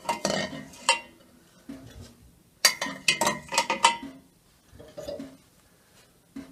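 Hard-boiled eggs and a spoon clinking and knocking against a stainless-steel pot as the eggs are lifted out of the hot water. There are a few scattered knocks and a quick run of clinks about two and a half seconds in.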